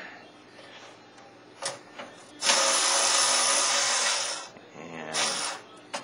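A screwdriver turning a motherboard screw into a case standoff, driven only part way. There are a couple of light clicks, then about two seconds of steady grinding noise, and a shorter burst of it about five seconds in.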